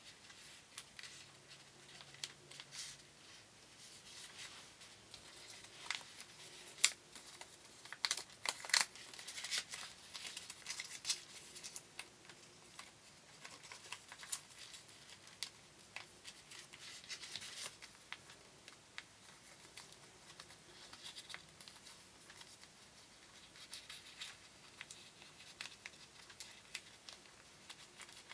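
Origami paper being folded and creased by hand: irregular crinkling and sharp little crackles as the sheets are pressed and tucked, busiest a few seconds in.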